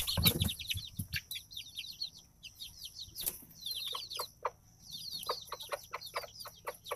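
Many chicks peeping in quick, high chirps that slide downward, with a broody hen clucking lower among them, calling her chicks to food. A brief rustle at the very start.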